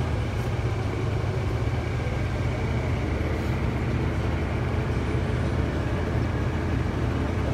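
Steady engine and road noise of a moving motor vehicle, a constant low rumble with no change in level.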